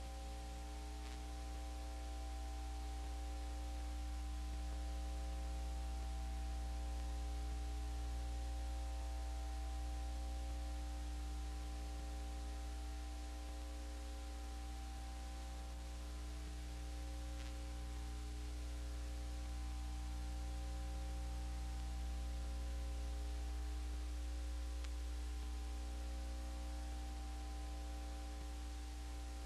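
Steady low electrical mains hum with constant hiss and a few faint steady tones above it, unchanging throughout, with a faint tick about a second in and another past halfway.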